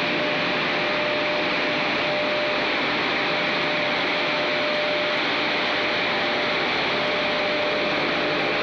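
Industrial rotary drum dryer running: a steady, even mechanical noise with a faint steady hum underneath.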